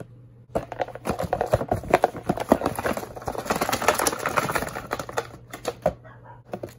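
Cardboard phone box being opened and handled: a quick, dense run of rustling, clicks and scrapes of cardboard and paper, starting about half a second in and stopping near 6 seconds.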